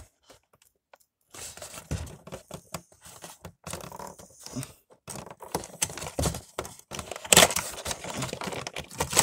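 Hands opening a cardboard diecast box with a clear plastic window and sliding the packaging apart: irregular scraping, crinkling and clicking of card and plastic. It starts about a second in and is loudest near the end.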